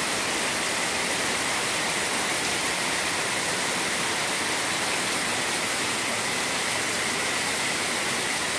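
Heavy rain pouring steadily, a dense even hiss, with drops splashing into standing floodwater.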